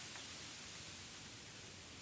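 Steady faint hiss of a nature-ambience background track, even and unbroken.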